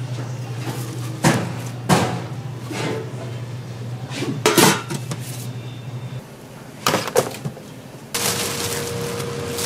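Kitchen utensils and cookware clattering, with several sharp knocks against a steady low hum. About eight seconds in, a steady hiss sets in.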